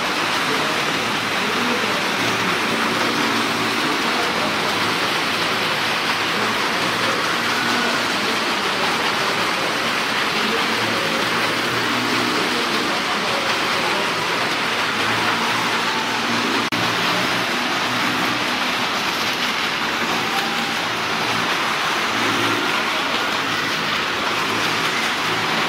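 Motorcycle and car engines running continuously as they ride round the vertical wooden wall of a well-of-death drum, a steady, dense noise with no break.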